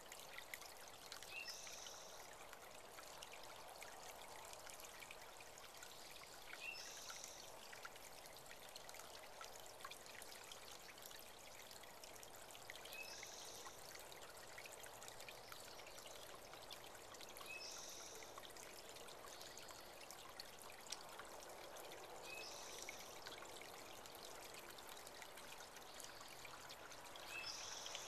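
Small spring-fed creek trickling and babbling steadily. A bird gives a short, high call about every five seconds, six times in all.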